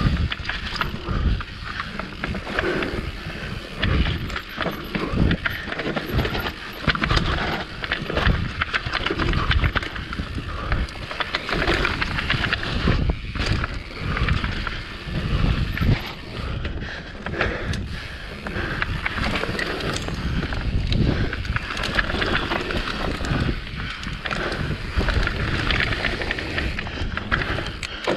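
Mountain bike ridden fast down a rough dirt singletrack: tyres rolling over dirt and roots, with a constant clatter of knocks and rattles from the bike as it takes the bumps, heard from a camera on the rider.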